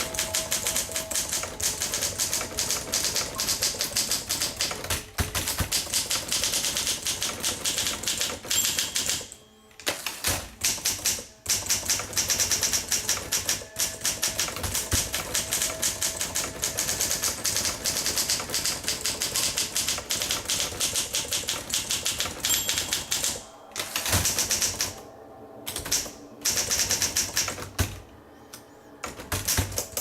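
Olympia SM3 portable manual typewriter typed on quickly: a dense run of key strikes, broken by a few short pauses, one about a third of the way in and several in the last few seconds.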